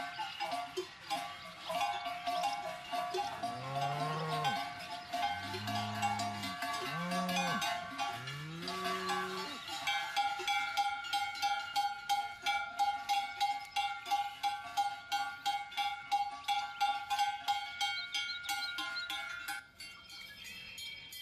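Large cowbells on walking cows clanging steadily in step, and a cow mooing four times in a row in the middle. The bells drop lower near the end.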